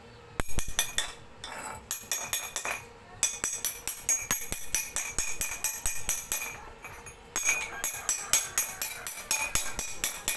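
Rapid metal-on-metal tapping and clinking with a ringing tone, in three quick runs separated by short pauses, like a hammer chipping or knocking welded steel.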